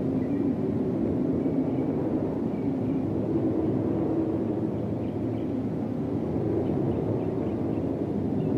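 Open-cockpit racing car's engine running while the car stands still, a steady low rumble.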